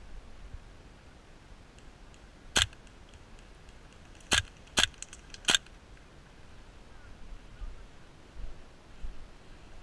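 Airsoft rifle firing four single shots, each a short sharp crack. There is a pause after the first, then three come close together.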